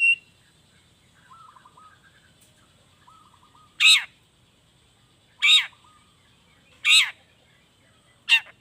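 Long-tailed shrike (cendet) calling: four loud, short calls about a second and a half apart, each sweeping downward, after some faint soft chattering.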